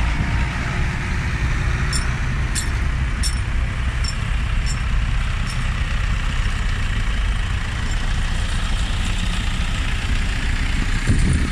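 Vintage farm tractor engines running steadily as tractors drive slowly past one after another, with a low, even rumble. A few light metallic clinks come between about two and six seconds in.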